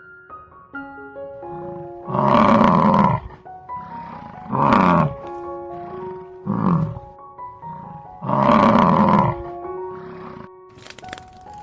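Four loud, rough animal calls, each about half a second to a second long, over background music with a light plucked melody.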